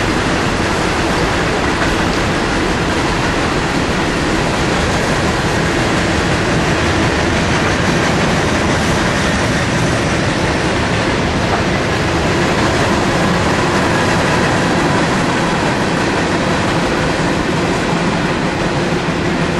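Train of enclosed autorack cars rolling past close by: a steady noise of steel wheels on rail.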